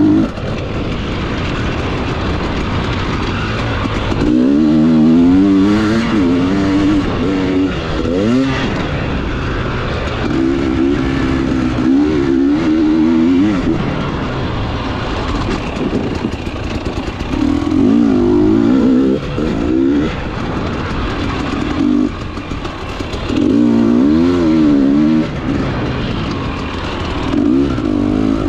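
KTM 300 TPI two-stroke single-cylinder dirt bike engine under a rider, the throttle opened in about six strong bursts with the pitch wavering up and down, dropping back to a rougher, lower running between them.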